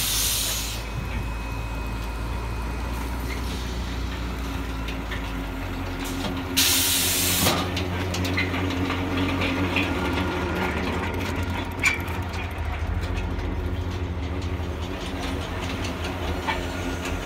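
Silage packing machines and their feed conveyor running with a steady mechanical hum. A short, loud hiss sounds right at the start and again about seven seconds in, and a single sharp knock comes about twelve seconds in.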